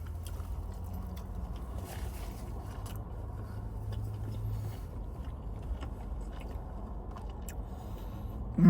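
Close-up chewing and biting of food: soft mouth clicks over a low steady hum in a car cabin. At the very end comes a short, loud vocal sound falling in pitch.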